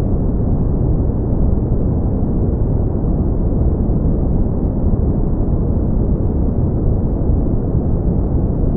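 Steady brown noise: an even, deep rushing hiss with most of its weight in the lows and nothing above the midrange, unchanging throughout.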